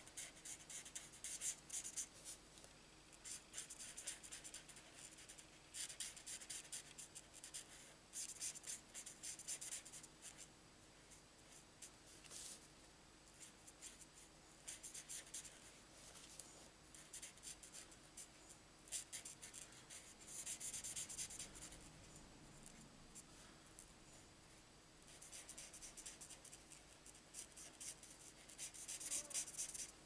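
Faint scratching of an alcohol marker tip stroking back and forth over a paper butterfly, in short bursts of quick strokes with pauses between.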